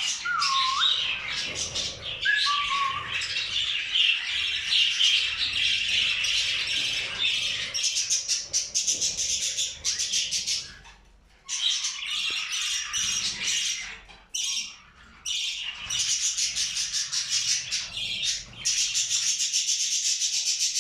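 A flock of budgerigars chattering and warbling in a dense, fast stream of chirps, with two brief gaps past the middle. In the first few seconds a person whistles short gliding notes to the birds.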